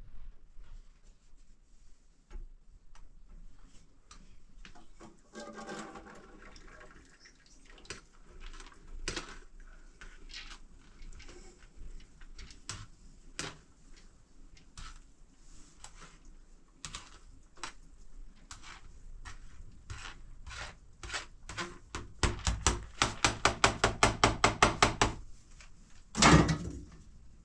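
Kitchen work with utensils and cookware: scattered knocks and clatter, then a fast, even run of strikes, about six a second for roughly three seconds, and one loud thump near the end.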